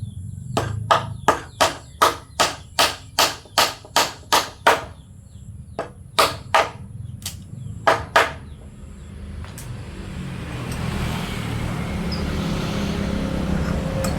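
Hammer striking wood: about a dozen even blows at roughly three a second, then after a short pause about five more, spaced irregularly. From about ten seconds in, a steady rushing noise builds up.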